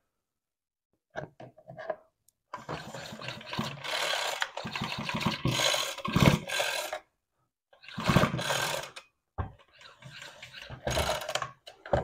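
Ryobi Expand-It two-stroke trimmer engine being turned over by hand, its crank and flywheel giving rapid mechanical clicking and rasping in several bursts, the longest about four seconds. The flywheel is not spinning freely with the crankshaft, a fault the owner suspects comes from a broken flywheel key.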